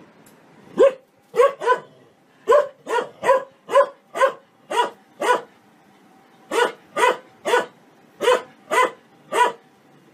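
A large shepherd-type dog barking repeatedly: about sixteen loud single barks in quick runs, with a short pause a little past the middle.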